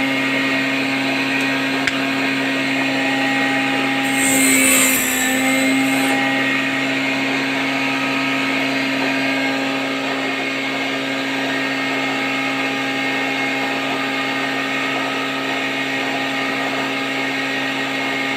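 Homemade spindle cutting machine running steadily with its spinning cutter disc, a constant motor hum and whine. About four seconds in, a louder rasp lasting a second or two as the cutter bites into the wood, cutting the slot in a window-shutter rail, then the machine runs on free.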